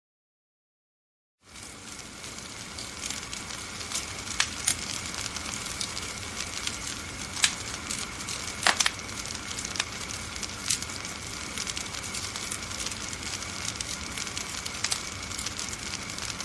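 Fire burning with a steady crackling hiss and scattered sharp pops and snaps. It starts after about a second and a half of silence.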